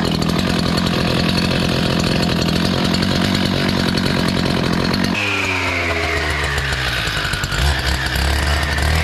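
Stihl TS 400 two-stroke cut-off saw running at high revs. About five seconds in the sound changes abruptly to a lower whine that falls in pitch as the diamond blade cuts into the concrete foundation wall.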